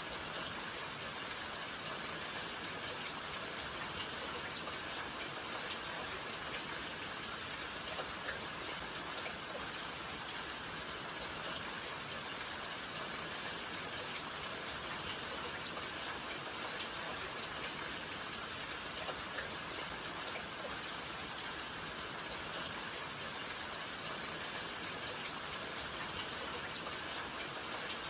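Steady rain falling, an even hiss with scattered individual drops ticking on surfaces.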